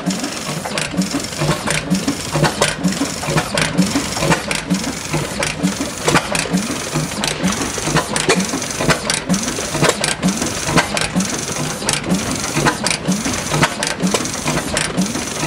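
1912 Reid 15 HP two-stroke oilfield engine running smoothly: an even, repeating beat of firing strokes with sharp metallic clicks from its valve gear and fittings.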